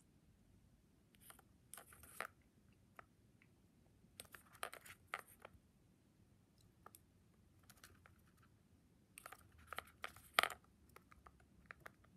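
Pied budgerigar shuffling about in a shallow dish among ping-pong balls: faint bursts of light scratching and clicking from its claws and beak on the dish and the balls, the sharpest click about ten seconds in.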